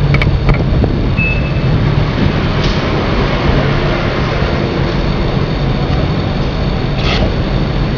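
High-pressure water spray hissing as it is jetted onto a van, over a steady low hum, with brief louder surges of spray about three and seven seconds in.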